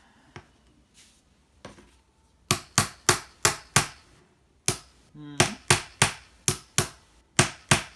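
Hammer tapping the brass pins through the glued handle scales of a knife, a run of sharp taps at about three to four a second, a lone tap, then a longer run.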